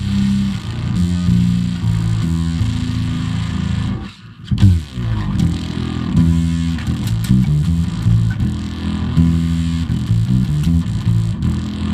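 Teisco electric bass played through a custom octave-up fuzz pedal with a blend knob, into a Bassman 60 amp. It is a run of distorted bass notes with an added upper octave. About four seconds in the playing drops out briefly, then comes back with a short sliding note.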